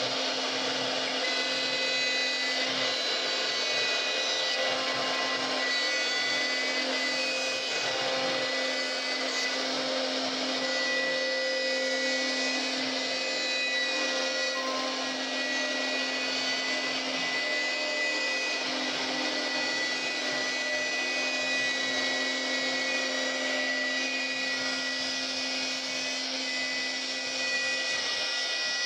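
CNC router spindle running steadily while its bit carves into wood: a constant machine whine with held tones over the hiss of cutting.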